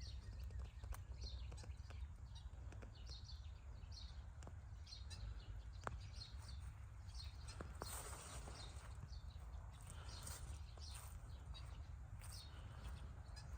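Small birds chirping: many short, high chirps repeating several times a second, faint, over a low steady rumble with a few soft clicks.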